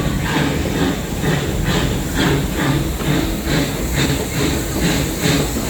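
Amusement park railroad train running, heard from aboard: a steady rhythmic beat of puffs about two a second over the low rumble of the rolling cars.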